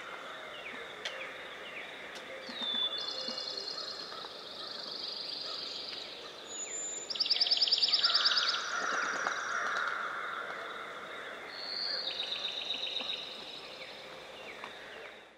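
Dawn chorus of several songbirds: fast, even trills and short whistled notes overlapping. The loudest trill comes about seven seconds in.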